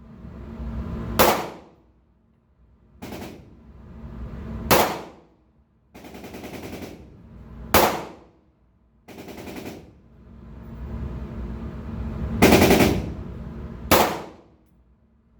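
9mm pistol being fired: about five loud single shots a few seconds apart, the fourth one longer than the rest.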